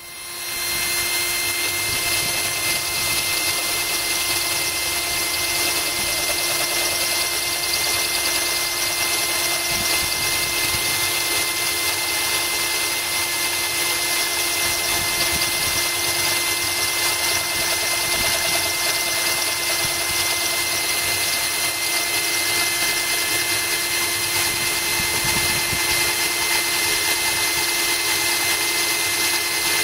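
Cordless drill running steadily, its bit grinding into a glass bottle while water from a hose runs over the cut to cool it. It spins up at the start and holds an even pitch throughout.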